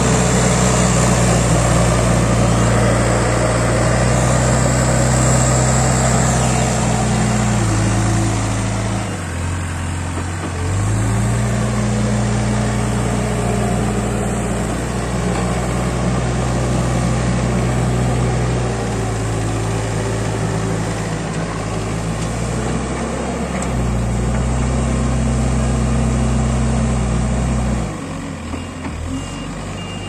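Diesel engine of a Case backhoe loader working, its speed falling and rising as the loader digs and moves: it drops about eight seconds in, picks back up around ten seconds, eases off again in the middle and revs up before falling near the end. A reversing alarm beeps steadily near the end.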